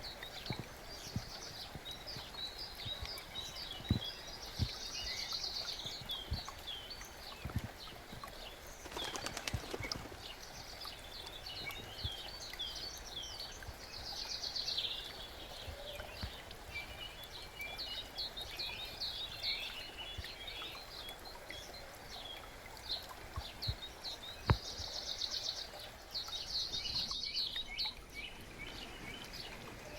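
Several small songbirds chirping and trilling over the steady rush of a forest brook, with a few sharp knocks, the loudest about three-quarters of the way through.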